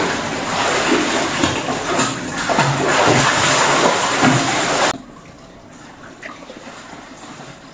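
Water running in a steady gush that stops abruptly about five seconds in, leaving a much quieter background.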